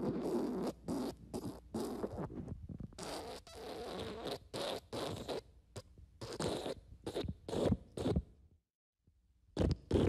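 Fart sound effects: a long run of short, separate fart blasts in quick succession, stopping about eight and a half seconds in. After a brief silence, another run of fart blasts starts near the end.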